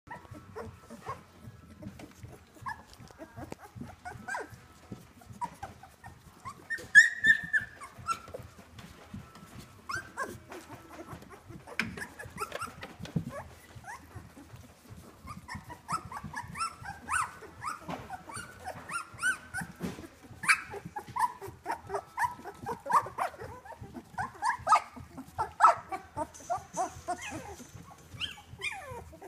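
Newborn Giant Schnauzer puppies squeaking and whimpering in the whelping box: many short high cries, one loud cry about seven seconds in, and a near-continuous chorus of overlapping squeaks through the second half.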